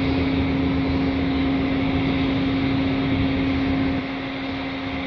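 Steady mechanical hum of a container ship's machinery, with one constant tone over a broad rushing noise. The deep low rumble underneath drops away about four seconds in.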